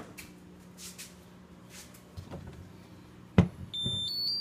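A power switch clicks once, then the CTC 3D printer's buzzer plays a short startup tune of three steady beeps, each higher than the last.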